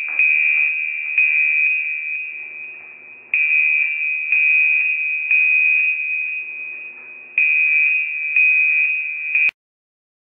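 A computer playing an alarm sound file: a loud, steady, high electronic beep tone, restarted again and again about once a second, until it cuts off with a click about nine and a half seconds in. It is the bomb-detection program's alert, signalling that it has flagged a suspect object in the camera view.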